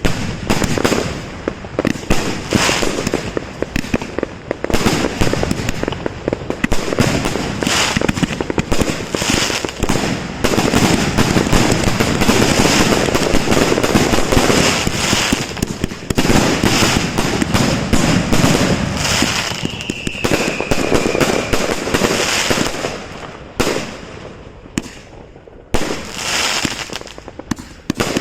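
Fireworks firing a dense, continuous barrage of shots and crackling bursts, with a short falling whistle about twenty seconds in. The barrage thins out for a couple of seconds near the end, then picks up again.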